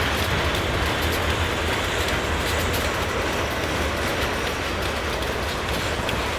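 Freight train of steel coil cars rolling past, a steady rumble of wheels on rail.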